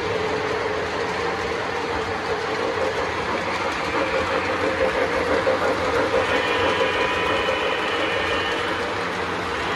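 O gauge model trains running on three-rail track: a steady whir of motors and wheels rolling over the rails, with a hum running through it. Higher tones join about six seconds in.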